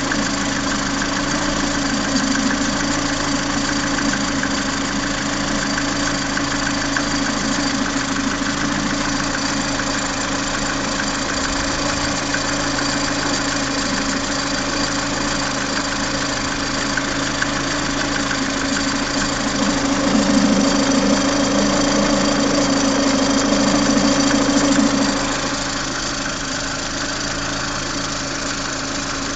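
Lada Priora's VAZ-21126 1.6-litre 16-valve four-cylinder engine running with a knock that the owner puts down to the pistons (the piston and connecting-rod group), at only 12,000 km. It runs steadily, gets louder for about five seconds about two-thirds of the way in, then settles back.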